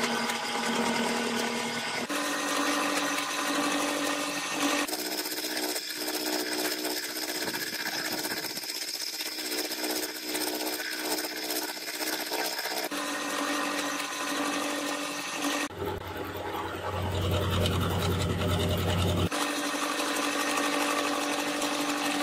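Milling machine cutting a solid steel block with an indexed insert cutter: a steady motor and spindle whine under the rattling hash of the cut. The sound changes abruptly several times as separate cuts follow one another.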